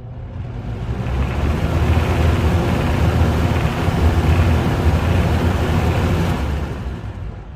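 20-inch Galaxy box fan starting up: a low motor hum under a rush of air that swells over the first second or so as the blade comes up to speed, holds steady, then falls away near the end.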